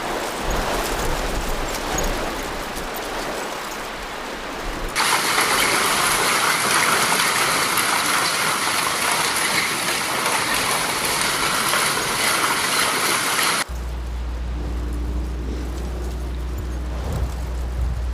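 Storm noise in several cut-together clips: a dense, steady hiss of heavy rain, strongest in the middle stretch, then a sudden switch to a low rumble of wind on the microphone for the last few seconds.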